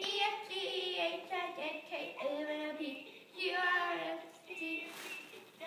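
A high, child-like voice singing a tune in phrases with held notes.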